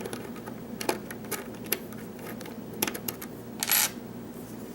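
Scattered small metallic clicks and taps from a Master Lock 996 padlock and its parts being handled during disassembly, with a brief scraping sound a little past three and a half seconds in.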